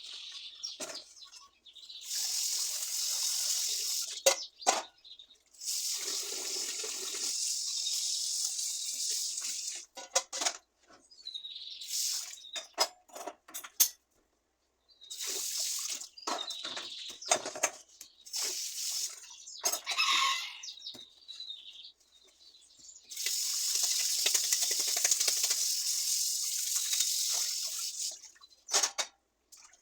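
Water running in several bursts of a few seconds each, stopping and starting, with short clicks and squeaks in between.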